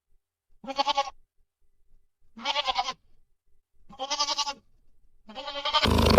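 Four quavering bleats, each about half a second long and about a second and a half apart. A much louder roar cuts in at the very end.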